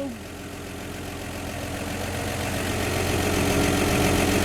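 1954 Chevrolet 235 straight-six idling steadily through Fenton cast-iron headers, the exhaust leak at the front header donut now repaired. The sound grows gradually louder.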